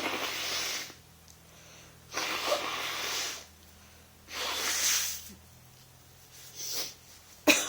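A person with a cold taking three long, hissing breaths about two seconds apart as a sneeze builds, then a short, sharp sneeze near the end.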